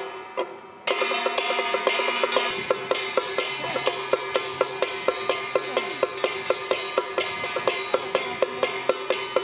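Traditional temple-procession percussion band of a White Crane troupe playing a steady beat of sharp, ringing strikes, about three a second, over a held tone. After a brief break in the first second the beat picks up again.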